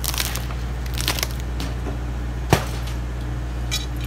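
A few sharp cracks and snaps from rotted, water-damaged plywood sheathing being pulled off and handled, the sharpest about two and a half seconds in, over a steady low hum.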